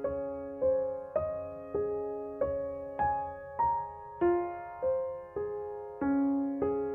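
Background music: a slow, gentle piano melody, single notes about every half second, each ringing out and fading.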